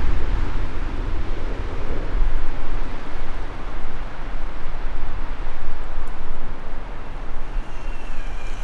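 A steady, deep rumble with a rushing haze over it. It eases slightly partway through, and faint high tones begin to come in near the end.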